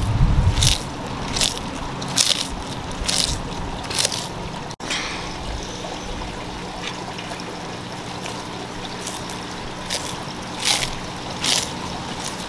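Sulcata tortoise biting and chewing crisp lettuce: sharp crunching bites about once a second, sparser after about five seconds, with a dull thump at the start.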